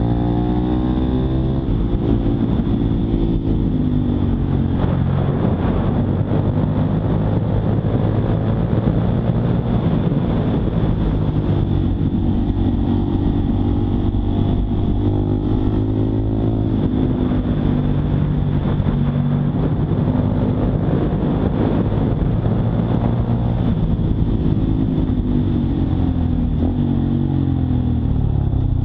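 Honda Monkey 125's single-cylinder four-stroke engine running under way, its pitch climbing and dropping several times as the bike accelerates and changes gear.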